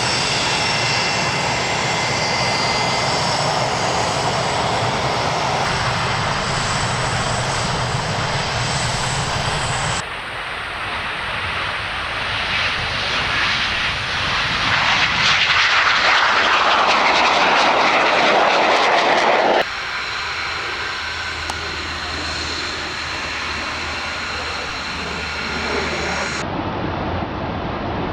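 Jet aircraft engines in several spliced clips: a steady jet whine with high tones, then a rushing pass that swells loud and cuts off abruptly, then steady engine noise again.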